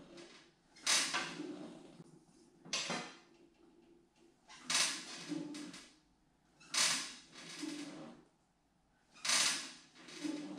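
Rear suspension of a go-kart buggy, a swing arm on Fox coil-over shocks, being pushed down by hand and let back up to test its travel, creaking with each stroke. Five strokes, about two seconds apart.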